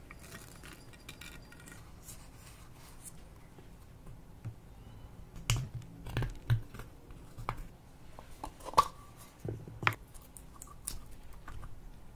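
Small plastic clicks, taps and scraping as pressed powder is scraped out of a plastic makeup compact with a plastic spatula. It starts faint and turns into scattered sharp clicks about halfway through.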